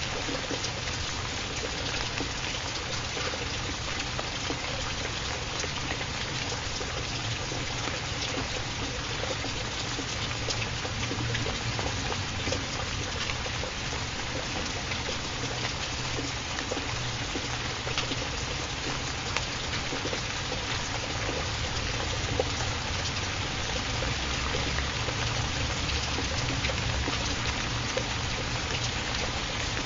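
Steady rain falling, an even hiss with scattered drip ticks, used as a continuous background bed.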